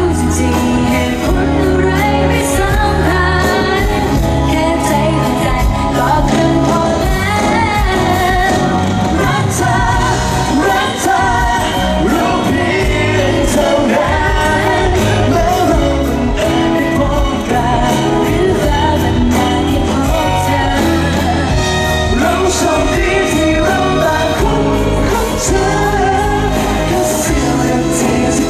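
Live pop song performed as a male and female vocal duet into handheld microphones, backed by a live band with keyboard and electric guitar over a steady beat.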